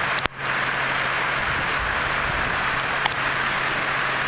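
Steady rush of fast-running floodwater in a swollen creek, mixed with hard rain falling. A short click and brief dropout about a third of a second in.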